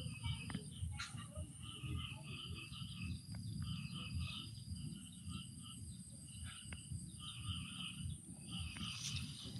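Rural outdoor ambience: a steady high insect drone, with clusters of short high chirps about once a second over a low rumble.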